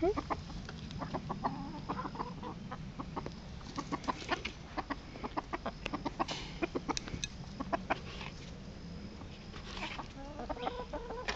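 A flock of backyard hens clucking as they feed on grubs, with many short, sharp ticks scattered throughout and a few more calls near the end.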